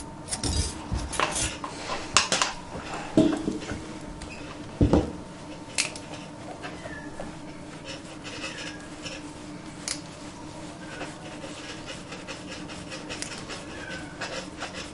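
Cotton wool rustling and rubbing as a newborn kitten, delivered by caesarean, is rubbed vigorously to stimulate it. There are several sharp knocks and clatters in the first five seconds, then softer rubbing over a steady low hum.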